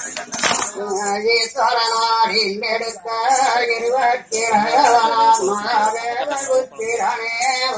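Kummi pattu, a Tamil folk song for the kummi dance, sung to a steady beat of jingling percussion.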